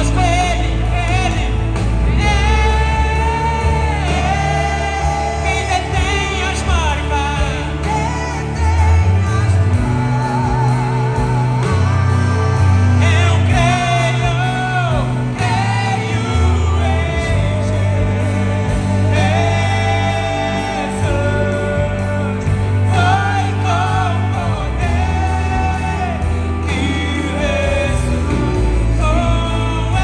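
Live gospel band playing a worship song in Portuguese: singers carry the melody over bass guitar, electric guitar, drums and keyboard, with a strong bass line that changes note every second or two.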